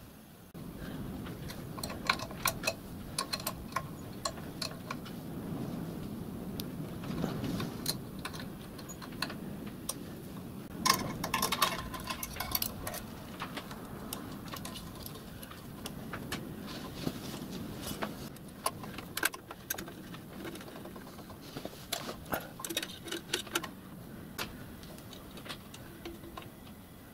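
Small metal clicks and taps of hands working brass pipe unions, nuts and fittings on a miniature live-steam locomotive's injector pipework, irregular throughout, with a denser cluster about eleven seconds in, over a low handling rumble.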